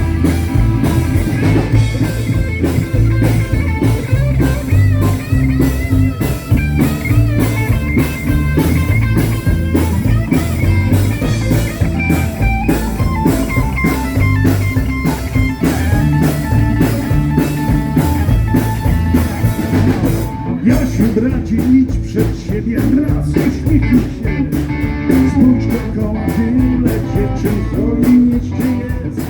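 A blues-rock band playing live: electric guitar lines over bass guitar and a drum kit keeping a steady beat.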